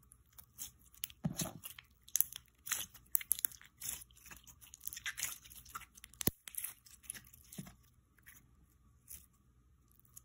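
Glitter putty slime squished, pinched and stretched between the fingers, giving off irregular small sticky clicks and crackles that thin out near the end.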